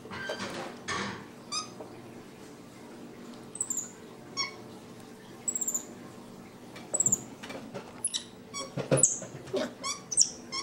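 Capuchin monkey giving repeated short, high-pitched squeaks and chirps, about ten calls spread through, the fussing of a tired young monkey. A few knocks sound among them.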